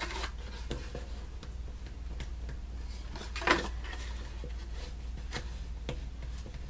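Folded cardstock box being pressed and handled by hand: soft paper rubbing and light taps, with one sharper click about three and a half seconds in, over a steady low hum.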